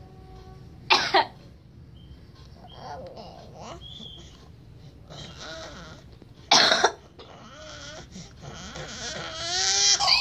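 A woman coughing: a quick double cough about a second in and a single cough a few seconds later. Between and after the coughs a baby makes high, gliding squeals and babbles, which grow loudest near the end.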